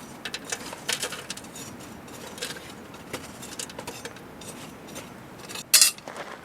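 Irregular clicks, clinks and light knocks of small hard objects being handled, with one louder sharp knock near the end.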